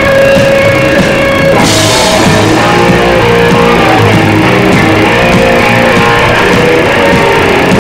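Live rock band playing loud, with electric guitar and drums. About a second and a half in, held notes give way to the full band coming in with a wash of cymbals.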